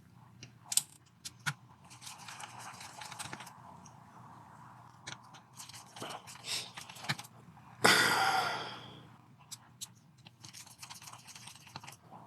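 Handling noises of a PlayStation 4 being taken apart: scattered clicks and scrapes of a screwdriver and hands working screws out of the casing. About eight seconds in comes one loud clatter that rings on and fades over about a second.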